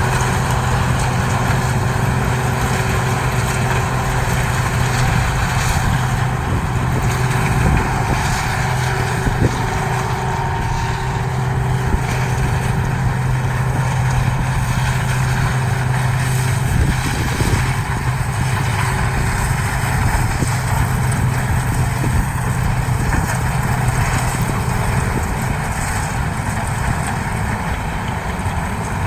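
CLAAS Mega 204 combine harvester running steadily at work in a corn field: a continuous engine drone with a steady low hum under the machinery noise.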